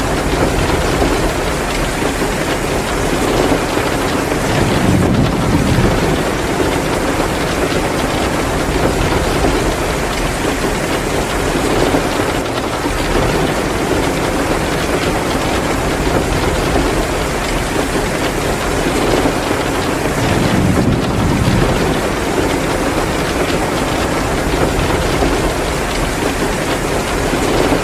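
Heavy rain pouring down in a steady, dense hiss, swelling a little deeper and louder twice.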